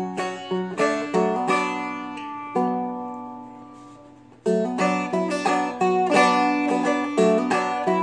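Seagull Merlin, a small four-string dulcimer-style instrument, picked in B minor, playing the melody line over a repeating low drone note. About a third of the way in, a chord is left ringing and fading for nearly two seconds before the picking starts again.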